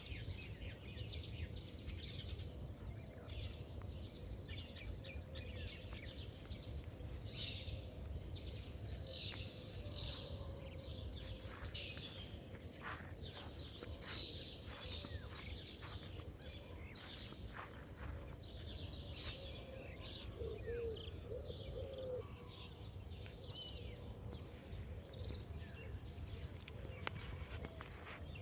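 Birdsong at dawn: many short, high chirps and calls from songbirds, thickest about a third and half of the way in, over a steady low background rumble.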